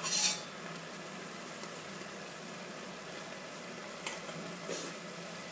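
A pot of risotto sizzling steadily on the stove over a faint low hum, with a short sharp burst of noise right at the start and two brief, smaller sounds about four seconds in as ingredients and utensils are handled at the pot.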